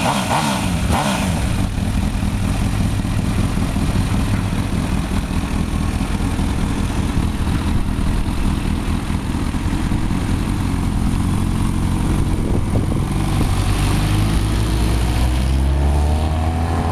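Sport motorcycle engine running, its pitch rising and falling as it is revved near the start and again toward the end as it is ridden off.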